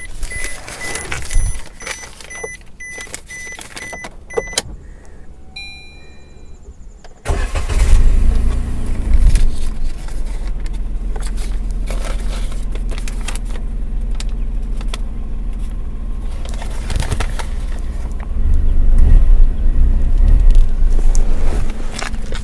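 Keys and clicks with a few short electronic beeps. About seven seconds in, a Maruti Suzuki Wagon R's 1-litre three-cylinder engine starts and settles into a steady idle, getting louder for a few seconds near the end. The engine noise is normal for a three-cylinder, with good refinement.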